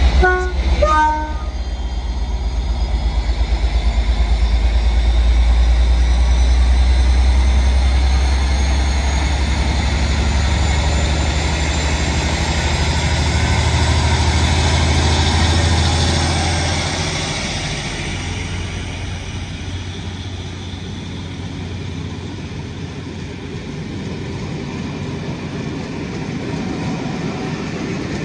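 A Class 57 diesel locomotive's EMD two-stroke V12 pulling away under power: a loud low engine rumble with a faint rising whine above it. The rumble fades after about 17 seconds, leaving the quieter rolling of the coaches passing on the rails.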